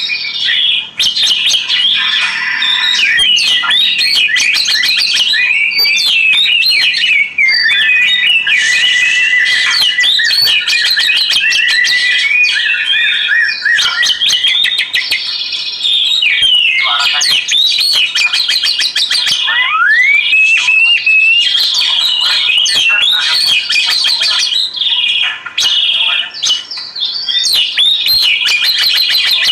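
Oriental magpie-robin (kacer) singing continuously: a loud, varied song of clear whistles, rapid trills and notes that glide up and down in pitch.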